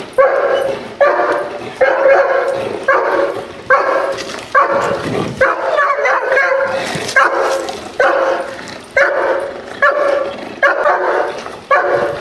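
A German Shepherd barking steadily in a regular rhythm, about one loud bark a second: warning barks at a decoy while the dog guards its owner sitting on the ground.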